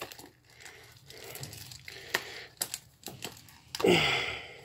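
Plastic shrink-wrap on a Blu-ray case crinkling and rustling as fingers pick at it, with irregular sharp clicks and a louder rustle about four seconds in.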